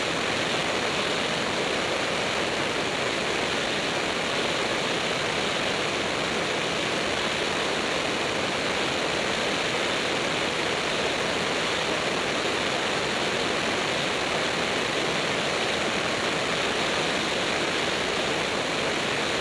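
Steady rushing airflow and engine noise of a light propeller aircraft in level flight, an even roar with no distinct engine tone and no change in level.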